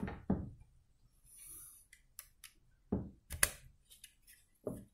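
Plastic building bricks of a brick-built dinosaur leg clicking and knocking as the leg sections are handled and the joint is flexed: several short, separate clicks.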